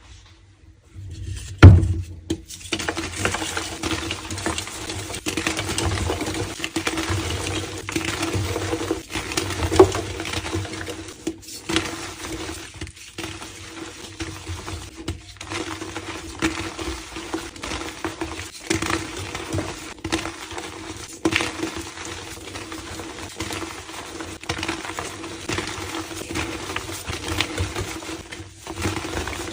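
Blocks of reformed gym chalk being crushed and crumbled by hand: a continuous crisp crunching and crackling, full of small sharp snaps, with one loud crack about a second and a half in. A steady low hum runs underneath.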